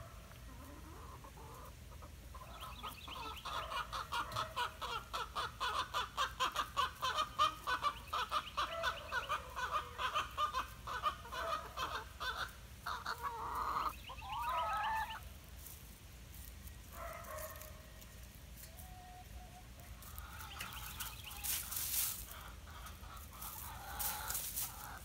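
Chickens clucking in a long rapid run of clucks, then a single call that sweeps up and down about fourteen seconds in, followed by softer scattered clucks. A few sharp rustles or knocks near the end.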